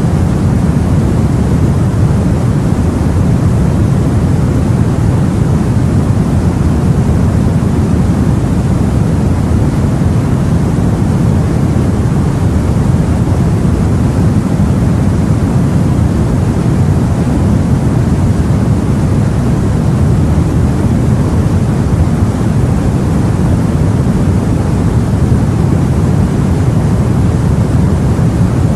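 Steady low rumble of the sea as heard aboard a boat: one continuous wash of water noise with no separate waves, splashes or breaks.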